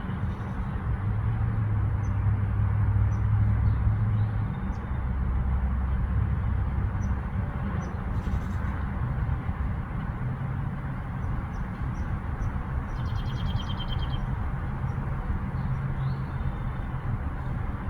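Outdoor ambience: a steady low rumble with a hiss over it, and small birds giving short chirps now and then, with one quick trill about thirteen seconds in.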